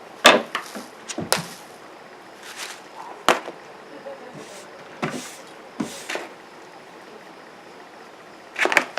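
Scattered clicks, knocks and short rustles of small objects being handled, with a quick run of clicks and rustles near the end: the sock, catnip and yarn being worked by hand.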